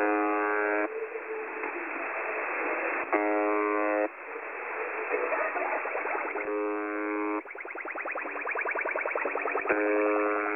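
The Buzzer (UVB-76), the Russian military shortwave channel marker, heard through a shortwave receiver: four harsh buzzes of about a second each, some three seconds apart. Between them, interference from people playing music and other strange sounds over the frequency fills the gaps, and from about seven and a half seconds in it turns into a fast, even pulsing.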